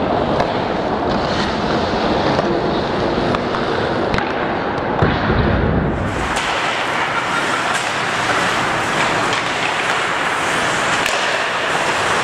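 Ice hockey play: skates scraping on the ice under a steady arena din, with scattered sharp clacks of sticks and puck. A brief low rumble comes about five seconds in.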